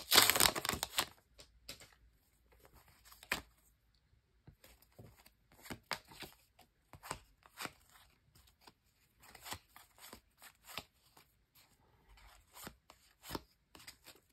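Foil trading-card pack wrapper crinkling loudly as it is pulled open, then a run of short, soft clicks and flicks as the cards are slid one by one through the hands.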